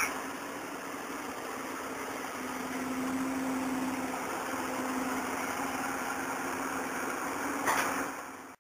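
Hydraulic excavator's diesel engine running steadily with a low hum that grows somewhat louder about two and a half seconds in. A brief sharp noise comes near the end, and then the sound cuts off abruptly.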